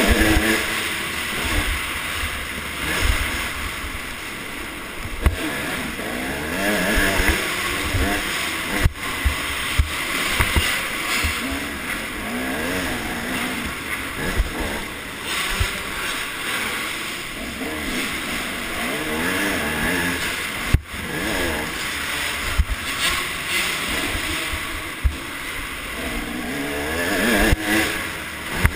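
Motocross bike engine revving up and falling back again and again as it is ridden over a dirt track's jumps and corners, heard from the rider's helmet with wind rush on the microphone and scattered knocks from the bumps.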